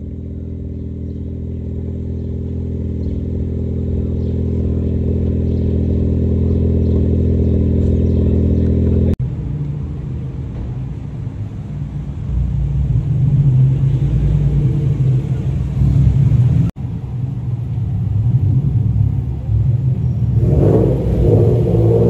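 Car exhaust notes in three short takes. First a Ford Focus ST's turbo four-cylinder exhaust drones at a steady pitch, growing louder. Then a first-generation Acura NSX's V6 and a Honda Civic Type R's turbo four rumble in the echo of a parking garage.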